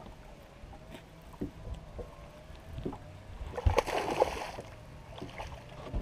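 A hooked largemouth bass splashing at the surface right beside the boat as it is reeled in, with the loudest thrashing about two-thirds of the way through. A few knocks on the boat deck come before it, over a faint steady whine.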